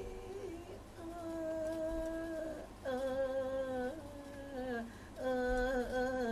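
A man's voice singing long held notes without words, the drawn-out vowel ornamentation of Thai lae singing. There are several sustained notes with short breaks between them, each stepping a little lower in pitch.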